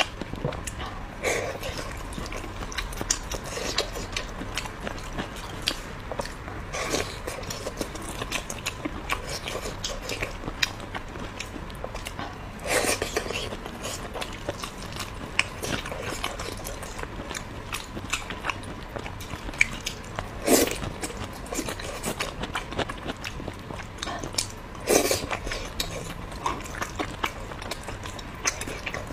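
Close-miked eating: a person chewing and biting mouthfuls of braised pork and rice, a steady run of wet mouth clicks with a few louder bites now and then.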